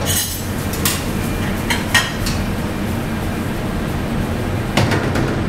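Stir-frying in a steel wok: sharp metal clinks and scrapes of a spatula against the wok, a few around one to two seconds in and one near the end, over a steady rushing noise from the gas range and extractor hood.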